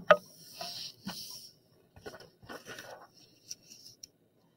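Paper rustling and sliding as a worksheet page is swapped for the next one, in two stretches of crinkling, followed by a few light taps near the end.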